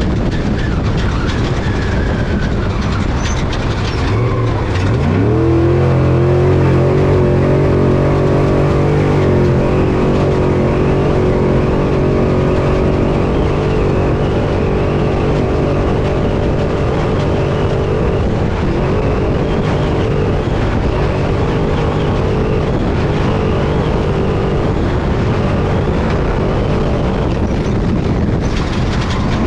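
Desert off-road race truck at speed, heard from inside the cab. The engine runs under a loud, constant rush of wind, tyre and chassis noise. About five seconds in the revs climb sharply and are held high for several seconds.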